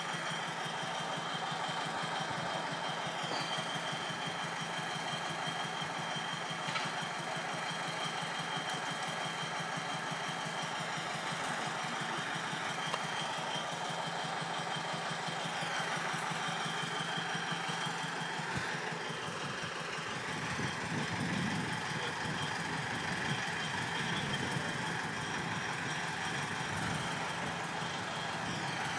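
Diesel engine of a narrow-gauge park-railway locomotive running steadily with an even firing rhythm and a thin, steady high tone above it, a little louder about two-thirds of the way through.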